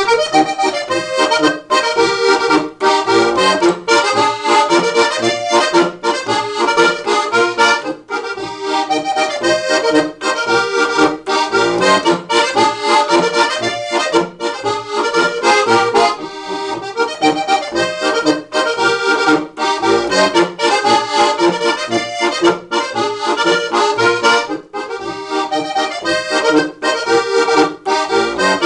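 Styrian button accordion (steirische Harmonika) playing a Boarischer, an Alpine folk dance tune, with a steady beat.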